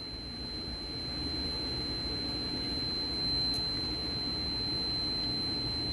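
Continuity tester beeping a steady, high single tone across a relay's common and normally closed contacts, a sign that those contacts are still touching. A faint click comes about three and a half seconds in.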